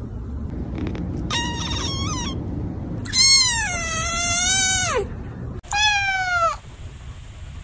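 Kittens meowing three times in high-pitched cries. The first is short and wavering, the second is long and drops in pitch at its end, and the third falls in pitch throughout.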